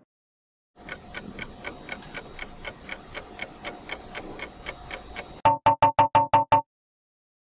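Quiz countdown-timer sound effect: steady clock-like ticking, about four to five ticks a second over a faint electronic tone, starting about a second in. It ends in a louder, rapid run of seven alarm-like beeps as time runs out.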